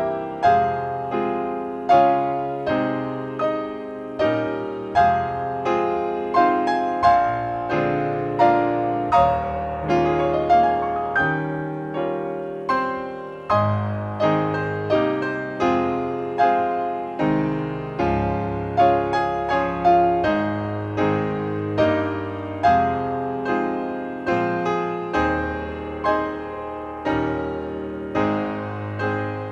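Solo piano music: a slow, gentle piece of struck notes and chords, each note ringing and fading before the next.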